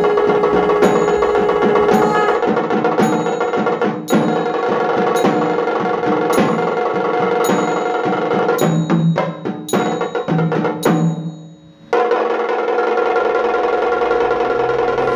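Background music: sustained tones over a percussion beat of sharp strikes about once a second. About eleven seconds in it briefly fades almost away, then comes back in full.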